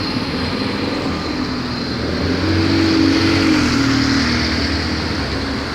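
Road traffic: a motor vehicle passing close by on the street, its engine and tyre noise swelling to a peak about three seconds in and then fading.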